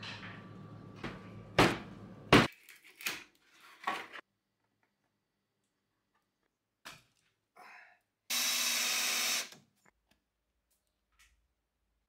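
Several knocks and thuds from handling plaster and its containers, the loudest about two seconds in, then about a second of steady whirring from a small power tool past the middle.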